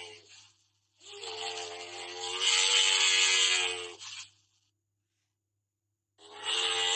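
Camel calls: a call dying away at the start, then a long call of about three and a half seconds that is loudest in its second half, and another beginning near the end.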